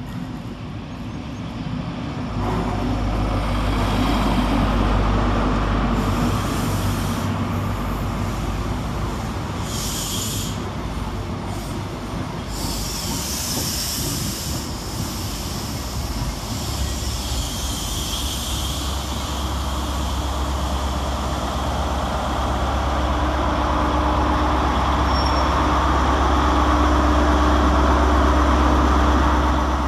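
ScotRail Class 43 High Speed Train pulling slowly into the platform. The leading diesel power car's engine rumbles past first; the coaches follow with brief high-pitched squeals as they roll by; then the rear power car's engine rumbles louder as it draws level near the end.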